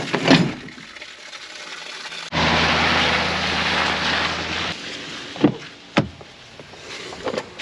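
An engine running steadily for about two seconds, starting and cutting off abruptly, followed by two sharp knocks.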